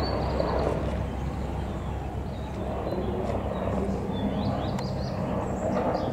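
Slow-moving vehicles running with a steady low engine hum, among the murmur of spectators' voices and short bird chirps.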